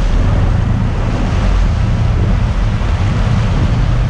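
Steady wind rumble on the microphone over rushing, splashing seawater churned up at a sport-fishing boat's stern.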